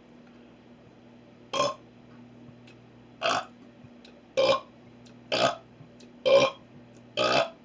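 A man burping deliberately, six short loud burps coming about once a second. A faint steady hum runs underneath.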